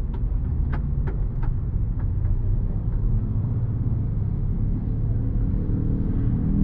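Intercity bus under way, heard from inside the driver's cab: a steady low engine and road rumble, with a few light clicks in the first couple of seconds. Near the end a tone starts to rise as the engine picks up.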